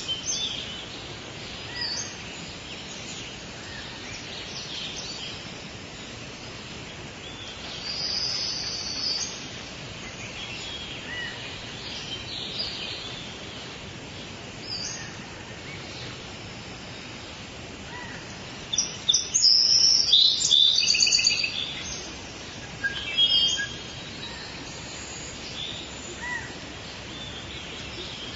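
Tropical rainforest ambience: a steady background hiss with scattered high bird calls, and a louder run of fast, repeated chirps about two-thirds of the way through.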